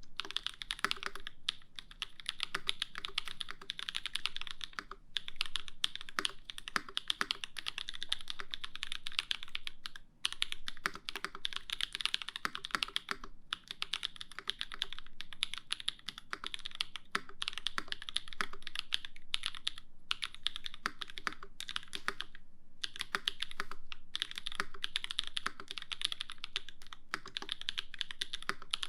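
Steady fast typing on an LZ CLSm mechanical keyboard: lubed Drop Holy Panda tactile switches on an aluminium plate, with GMK keycaps clacking. The key presses run in quick unbroken streams, broken by a few brief pauses.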